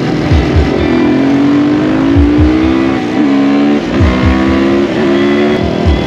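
Dual-sport motorcycle engine pulling hard at speed. Its pitch climbs steadily, then holds with brief dips about once a second near the end, with repeated low thumps underneath.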